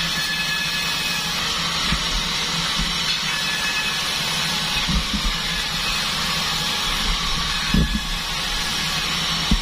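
A band sawmill running steadily while sawing durian wood, with a steady hum and hiss and a few low thuds.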